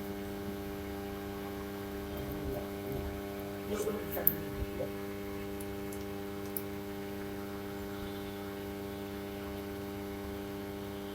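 Steady electrical mains hum with a stack of even overtones, with a few faint clicks and one short sharp tick about four seconds in.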